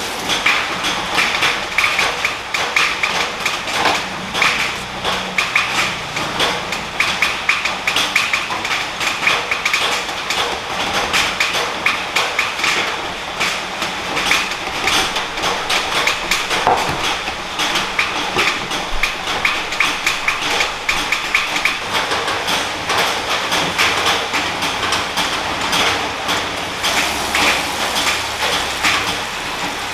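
Dense, continuous clatter of small knocks and taps, many a second, at a steady level.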